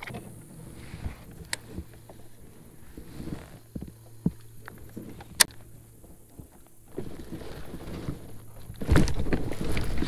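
Fishing gear being handled aboard a plastic kayak: scattered knocks and clicks, one sharp click about five seconds in, then louder handling noise near the end as the baitcasting rod and reel are picked up.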